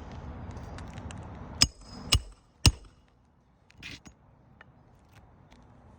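Three sharp hammer strikes about half a second apart on a roof snake, the tool slid under a shingle to drive its nails back in; the first two ring briefly.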